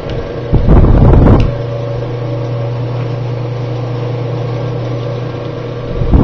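1920s Victor Electric table fan running and oscillating, its electric motor giving a steady low hum. A loud rush of air hits about a second in and again near the end as the oscillating fan sweeps past.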